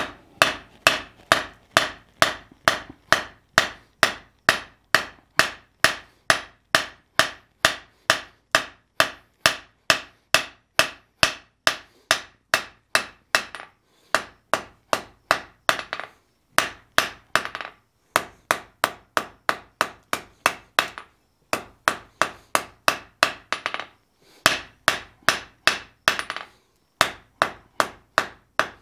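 Hand hammer striking a red-hot steel bar on an anvil in steady, rapid blows, about two and a half a second, each with a brief metallic ring, while the bar stock is forged flat. The runs of blows break off for short moments a few times and start again.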